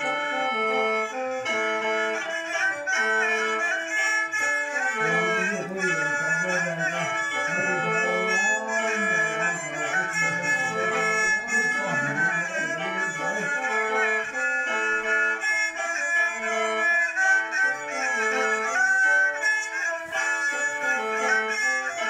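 Lao khaen, the bamboo free-reed mouth organ, playing sustained drone chords and melody together with a two-string bowed fiddle (so), whose sliding line is strongest in the middle of the passage. Traditional Lao music in Xieng Khouang (Phuan) khap style.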